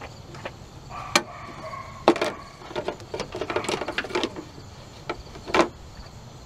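Plastic cowl vent panel being pulled up off a Dodge Dakota's windshield base: a series of sharp clicks and clatters, with loud cracks about a second in, at two seconds, and again near the end.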